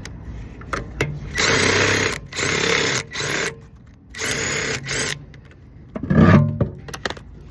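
Impact wrench running in short bursts, five in a row, as it spins lug nuts back onto a wheel. A shorter, heavier noise follows near the end.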